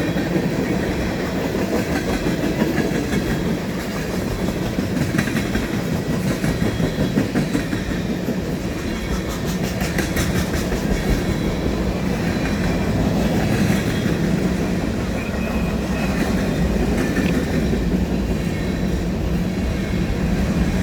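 Freight cars of a long CSX manifest train rolling past at speed: a steady rumble of steel wheels on rail with the clickety-clack of wheels crossing rail joints.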